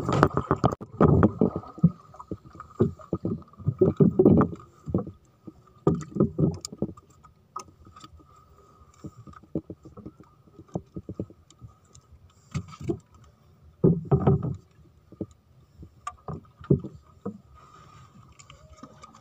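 Irregular knocks and thuds on a small wooden fishing boat as the fisherman moves about and hauls a white foam handline float aboard, louder in the first few seconds and again about two-thirds of the way in.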